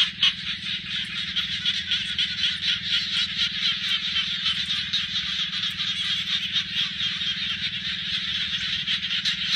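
A dense chorus of frogs calling, many rapid pulsing calls overlapping without a break, over a low steady drone.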